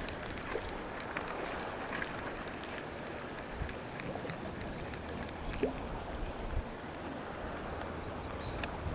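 Steady outdoor noise of wind and water at the shoreline, with a thin high steady whine and a few faint scattered clicks.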